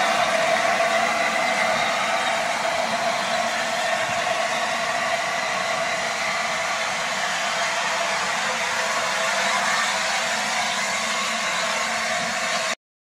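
Steady hiss of steam from the LNER A4 Pacific 'Sir Nigel Gresley' as it pulls away, slowly easing in level. It cuts off abruptly near the end.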